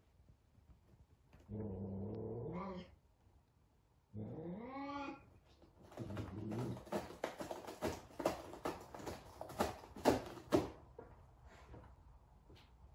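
A cat gives two drawn-out, low meows, the second arching up and down in pitch. Then claws rake rapidly on a cardboard scratcher for about five seconds.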